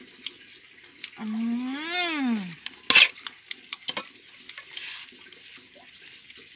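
Spoon clinking and scraping against a metal bowl as a wet salad with snails in their shells is mixed, with one sharp clink about three seconds in the loudest. Shortly before it, a voice gives one drawn-out hum that rises and then falls in pitch.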